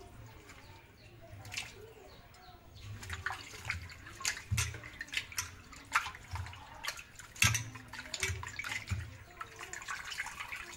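Raw chicken pieces being washed by hand in a steel bowl of water: irregular splashing and sloshing as the hand works the meat, with water poured over them near the end.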